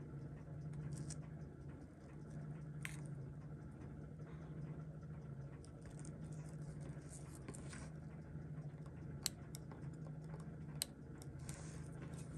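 A few light, sharp clicks of steel tweezers and tiny metal parts against a mechanical watch movement during disassembly, the loudest about 9 and 11 seconds in, over a steady low background hum.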